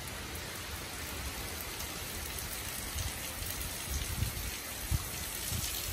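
Steady rain falling, an even hiss, with a few short low bumps in the second half.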